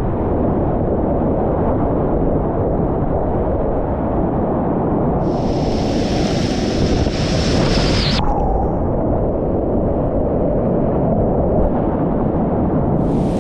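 Creek whitewater rushing steadily and loudly, mostly a deep, dull roar. About five seconds in, a brighter hissing splash comes up for about three seconds and then cuts off.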